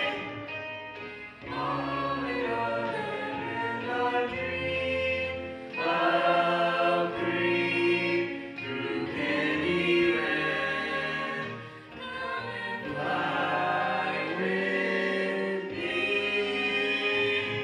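Musical-theatre song number: a cast of voices singing together in chorus over instrumental accompaniment with a steady bass line.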